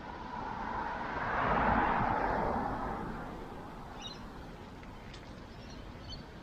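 A car passing by, its tyre and road noise swelling up and fading away over about three seconds. A few short high bird chirps follow near the end.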